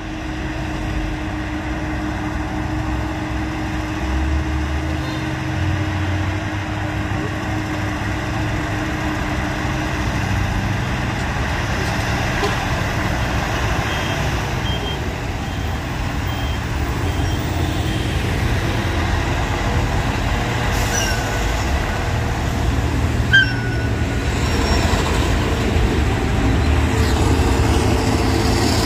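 A convoy of heavy diesel trucks driving past, their engines running with a steady low rumble that slowly grows louder toward the end. A faint string of short high beeps comes about halfway through, and a single short sharp sound about 23 seconds in.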